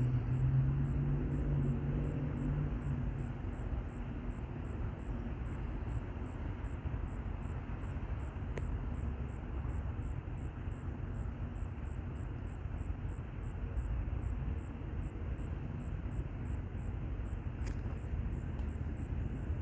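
Steady low outdoor rumble, like distant traffic or wind, with a vehicle engine hum that fades out in the first few seconds. A faint high ticking repeats about twice a second throughout.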